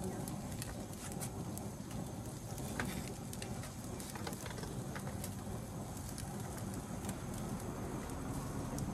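Fish sizzling on a gas barbecue grill: a steady hiss with scattered light clicks from metal tongs in a steel bowl.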